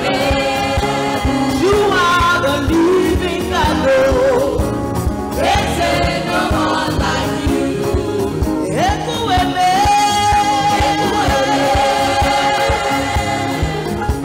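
Live gospel praise singing by a church worship team: several voices over a drum kit and band, with a long held note in the second half.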